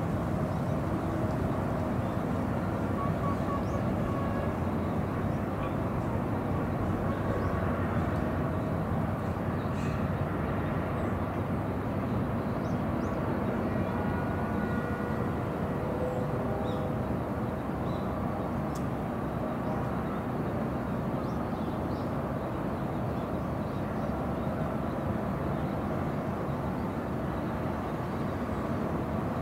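Steady low outdoor rumble with no distinct events, and faint short high tones now and then.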